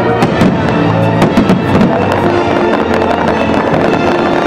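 Aerial fireworks bursting and crackling, a rapid string of sharp reports with no let-up, over loud pitched show music.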